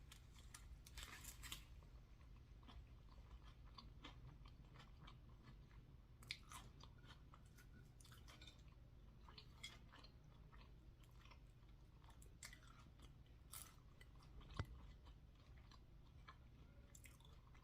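Faint close-up chewing of a burger and fries, with scattered small crunches and mouth clicks.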